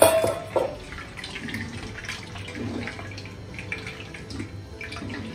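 Hands squeezing and kneading wet grated coconut in a steel strainer, with liquid dripping and trickling into the pot below as the coconut milk is pressed out. A small steel pot clinks down on the counter right at the start.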